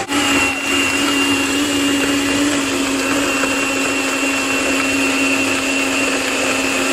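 Electric blender running steadily at full speed, a dense motor noise with a steady low hum and a high whine.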